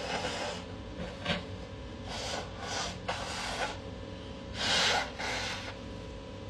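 A person sniffling and breathing sharply through the nose in a run of short, breathy bursts, part of an allergic sneezing fit. The loudest and longest burst comes a little past halfway.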